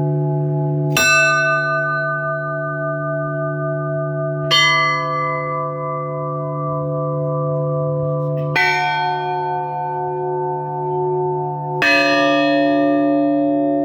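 Church bells struck singly, one stroke every three to four seconds, four strokes in all. Each stroke is lower than the last and rings on over a long low hum from a large bell. This is the slow descending funeral toll (perebor) of an Orthodox funeral service.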